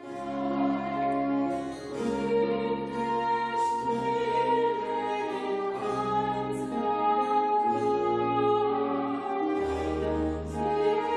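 Female classical singer in operatic style over a small instrumental ensemble with held bass notes. The music starts suddenly at the opening.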